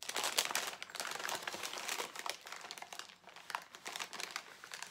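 Wrapping crinkling and crackling in quick, close-packed ticks as a small advent gift is unwrapped by hand.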